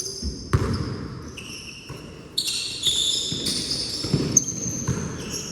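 Basketball bouncing on a court, with sneakers squeaking in short high chirps from about two seconds in.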